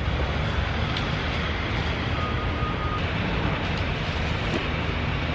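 Steady outdoor background noise: a constant low rumble with a hiss over it.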